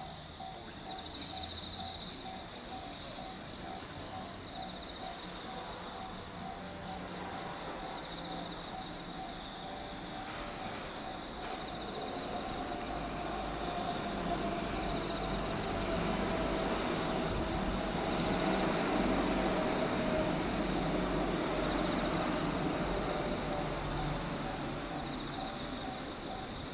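A steady chorus of insects trilling with a fast, even pulse. A low rumbling noise swells and then fades through the middle.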